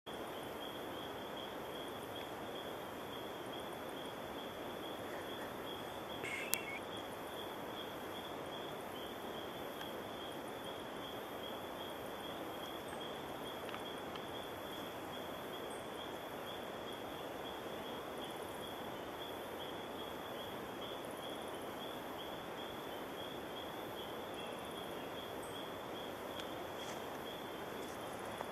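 Steady forest ambience: a continuous pulsing insect trill on one high note over an even background hiss. About six seconds in there is a short chirp and a single sharp click.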